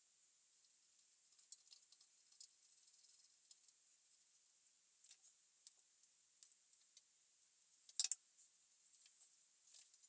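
Faint, scattered small clicks and ticks of wires and a screwdriver being handled at an air compressor's pressure switch while it is wired. Sharper clicks come a little after five and six seconds in, and a double click about eight seconds in.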